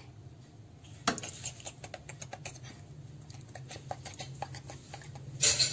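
Metal fork tapping and scraping against a nonstick frying pan while breaking up and stirring bread pieces in egg: a run of small irregular clicks, with a short louder noise near the end.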